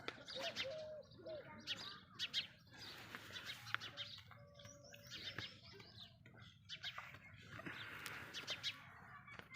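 Birds chirping: many short, high calls from several birds, coming in quick runs throughout.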